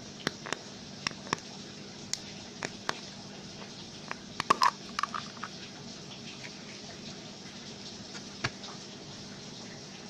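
Steady rain hiss with scattered sharp taps and clicks over it. A brief cluster of louder clicks comes about four and a half seconds in, and a single one near the end.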